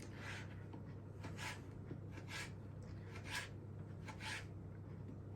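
Knife slicing through salami on a chopping board: faint rasping strokes, about one a second.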